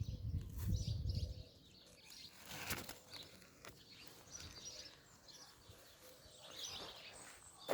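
Small birds chirping faintly, with a low rumble in the first second and a half.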